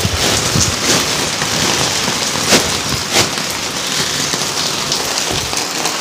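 Heavy rain pouring steadily on hard ground, with a few sharp taps standing out about two and a half and three seconds in.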